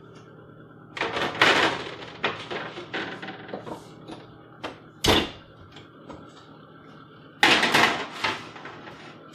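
Metal baking sheets clattering and scraping as they are slid onto the wire racks of a wall oven, in two bouts, about a second in and again near the end. Between them, about five seconds in, a single sharp bang as the upper oven door shuts.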